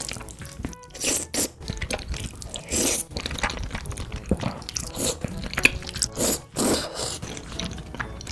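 A person eating close to the microphone: irregular crunching and chewing of food.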